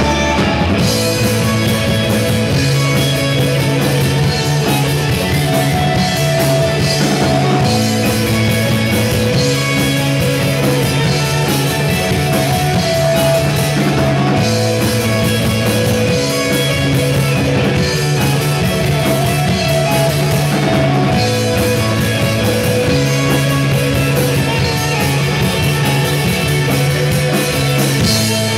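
Rock band playing live with drum kit, electric bass and two electric guitars: a steady rock groove with the bass line changing notes every couple of seconds under the guitars and drums.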